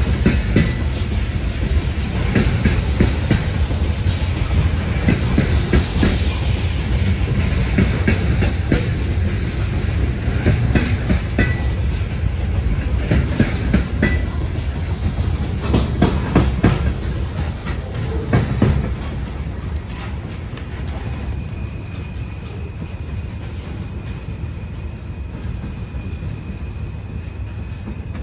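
Loaded coal hopper cars rolling past at close range: a steady rumble of steel wheels with sharp clicks and clanks as they cross rail joints. After about 18 seconds the clicking stops and the rumble drops to a lower, steadier level as the train moves away.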